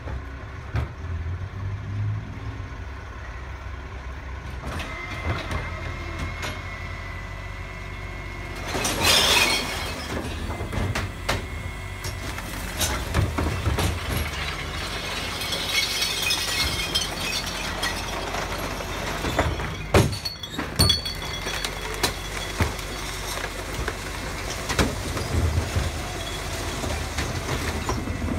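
Rear-loading garbage truck running at the kerb while wheelie bins are tipped into its hopper and the compactor works the rubbish in, with knocks and clunks of bins and machinery. A loud hiss about nine seconds in.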